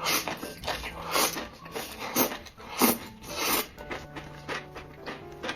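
A person eating close to the microphone: irregular slurps and chewing noises, a few a second, as saucy food is sucked in and chewed.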